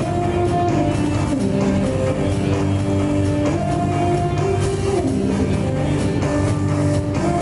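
Live rock band playing: electric guitars holding long notes that change every second or so, over bass guitar and drum kit.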